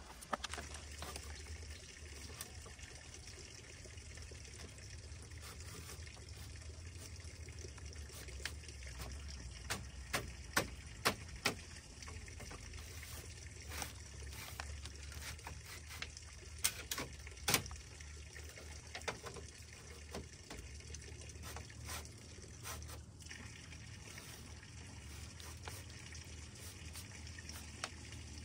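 Thin split-bamboo strips clacking and knocking against a bamboo frame as they are handled and slotted in one by one: irregular sharp taps, sometimes several in quick succession, over a steady faint hiss.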